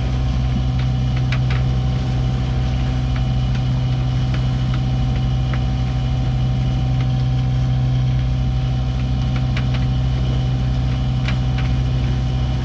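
Sailboat's inboard auxiliary engine running steadily under way: a constant low drone with a thin steady tone above it. Short clicks and knocks come and go on top.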